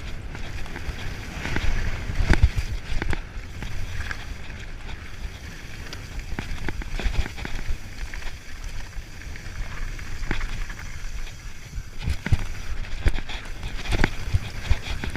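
Downhill mountain bike running over a rough dirt trail: a steady low rumble with wind buffeting, and many sharp knocks and rattles from the bike over bumps. The knocks thin out in the middle and come thick again near the end.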